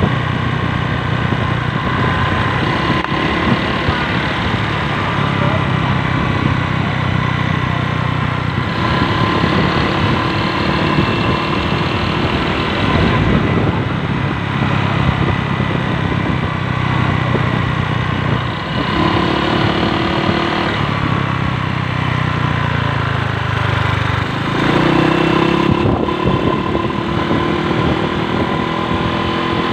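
An engine running steadily, its pitch shifting up and down a few times.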